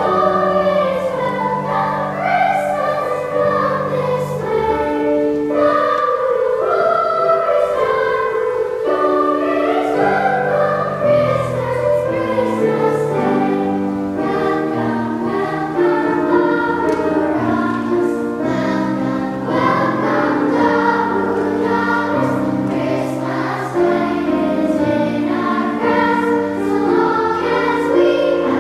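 Girls' choir singing with piano accompaniment.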